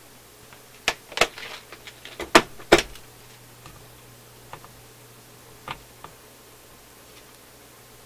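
A quick run of sharp knocks and clatters, loudest near the three-second mark, then a few fainter taps: a spool of solder and other small objects being handled and set down on a metal radio chassis.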